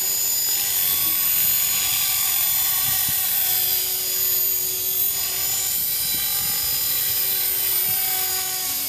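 Align T-Rex 450 Pro electric RC helicopter flying low and slow: a steady high-pitched whine from its motor and gear drive over the rotor's whir, the pitch shifting a little as it manoeuvres.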